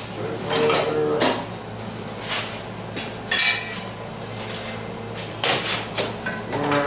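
Steel parts being handled on the bush hog rebuild, clanking together several times, some knocks leaving a short metallic ring.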